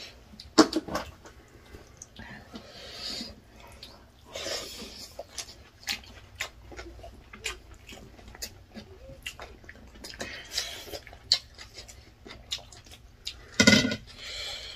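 Close-miked eating of rice and chicken by hand: chewing and lip smacks, small clicks of fingers and food on steel plates, and a few louder breathy bursts.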